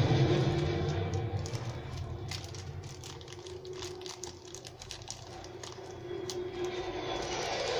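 Thin plastic bag crinkling and crackling in the hands, a quick run of small sharp crackles between about two and six seconds in, over a steady low hum.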